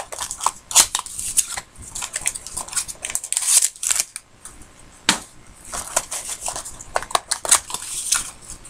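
A trading-card pack and its small cardboard box being opened and handled. The wrapper and card stock rustle and crinkle, with irregular sharp clicks and snaps.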